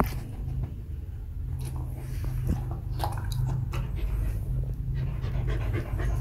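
Mother dog panting steadily close by, with a few faint clicks.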